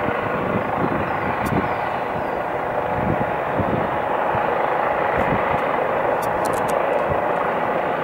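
Eurocopter EC135 helicopter hovering low and descending to land, its twin turbine engines and rotors running steadily and loudly with an uneven low thudding underneath.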